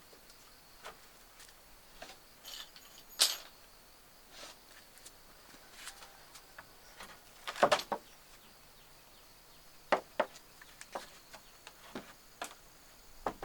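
Scattered sharp knocks and clicks, the loudest about three, seven and a half and ten seconds in, over a faint steady high-pitched insect hum.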